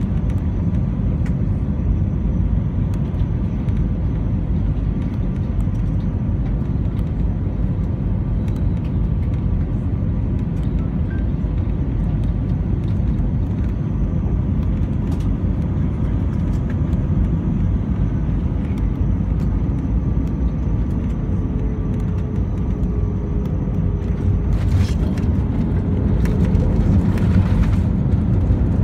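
Airbus A320 cabin noise on approach to landing: a steady low roar of the engines and rushing air, with a faint steady whine above it. It grows a little louder for a few seconds near the end.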